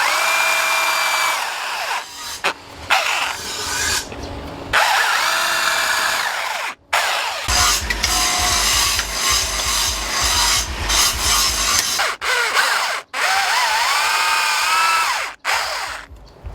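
Electric power tool running hard against metal, its high whine sagging and recovering as it is loaded, in several short runs broken by abrupt cuts.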